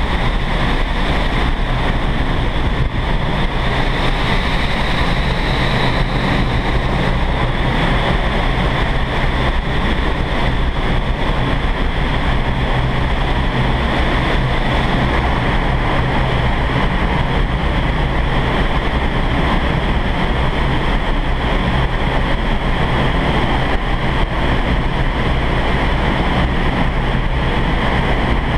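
Vertical wind tunnel airflow: a loud, steady rush of air up through the flight chamber, with a low rumble beneath, buffeting the microphone.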